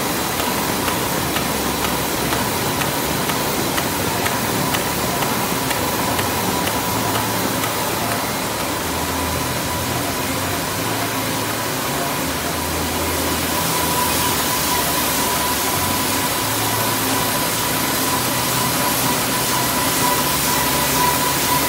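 Window-patching machine for tissue-box blanks running at speed: a steady mechanical rush and hum with a thin high whine that grows stronger a little past the middle. Faint rapid ticking runs under it in the first half.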